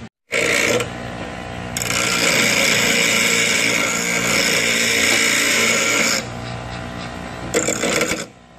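Power grinder cutting into steel bracket stock: a steady, high-pitched grinding with the motor's whine. It grows louder about two seconds in, as the wheel bites harder, and eases off about six seconds in.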